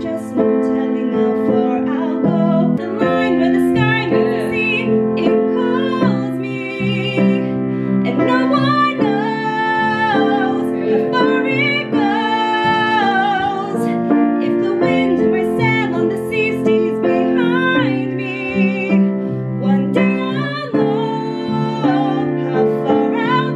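A woman singing solo, holding long notes with vibrato over an instrumental accompaniment.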